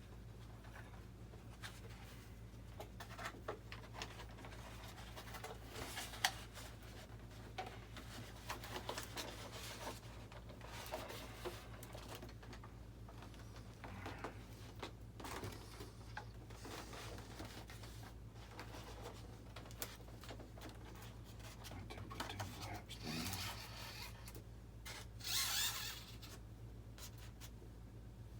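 Hands handling and working on a foam RC model jet: scattered small clicks, taps and rubbing, with a sharp click about six seconds in and a longer scraping rustle near the end, over a steady low hum.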